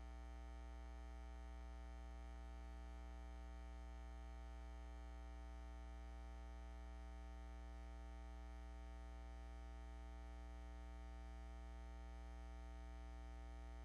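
Faint, steady electrical mains hum with a buzzy edge, unchanging throughout, with nothing else over it.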